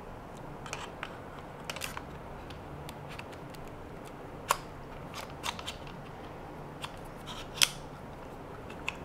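Scattered clicks and light knocks of a Sony A6500 camera being handled and fitted into the mount of a Moza AirCross gimbal, the sharpest about four and a half and seven and a half seconds in.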